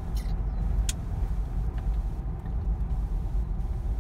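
Steady low rumble of a car's engine and tyres heard from inside the cabin while driving, with a light click a little under a second in.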